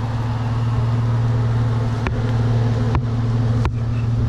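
Jeep engine idling steadily, a continuous low hum, with three sharp clicks or snaps at about two, three and three and a half seconds in.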